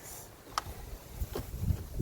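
Wind gusting over the microphone, a low rumble that grows stronger in the second half, with two light clicks.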